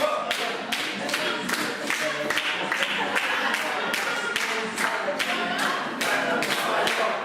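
A song with singing voices over a steady clapped beat, about three beats a second.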